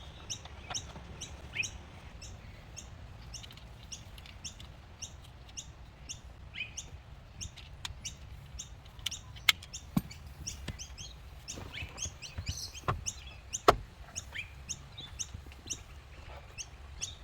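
A bird repeating a short high chirp two or three times a second, with a few sharp clicks and knocks around the middle, the loudest about two-thirds of the way through.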